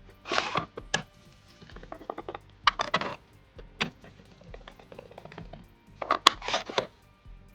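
Computer parts being handled during a PC build: a scatter of sharp clicks, taps and short rustling scrapes, bunched about a third of the way in and again near the end, over quiet background music.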